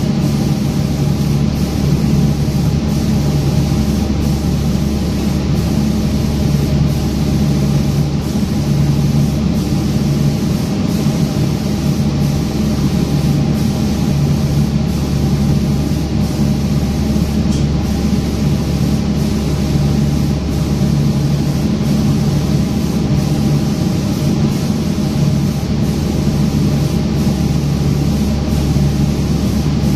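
Automatic lacquer spraying machine running: a steady mechanical hum with a hiss of spray over it, as its gantry spray gun works across a cabinet door panel.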